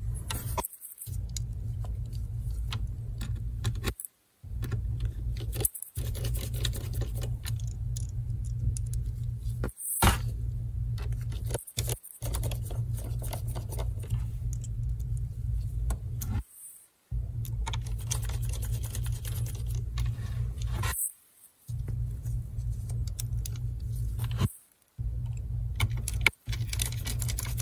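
Small screws and a precision screwdriver making light metallic clicks and rattles as the replacement LCD panel is screwed into the laptop lid's brackets, over a steady low hum. The sound cuts out abruptly for brief moments several times.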